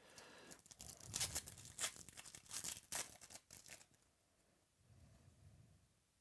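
Foil trading-card pack wrapper being torn open and crinkled, a run of quick crackling rips for about four seconds, then only faint handling rustle.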